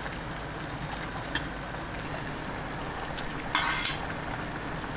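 Pot of water at a rolling boil with glass noodles cooking in it: a steady bubbling hiss, with a few light ticks and a short scraping sound about three and a half seconds in.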